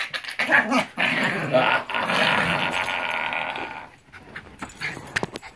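Yorkshire terrier growling in play while being held and wrestled, a continuous rough growl that stops about four seconds in, leaving light rustling.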